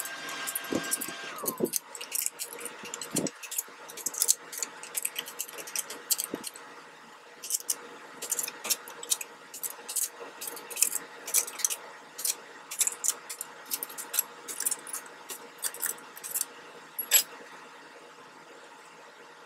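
Power drill running, then winding down and stopping about a second and a half in, followed by many scattered light clicks and rattles.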